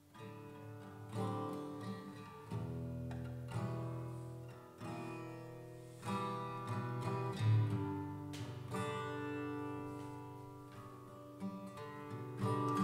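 Background music: an acoustic guitar playing a slow run of plucked notes that ring out and fade.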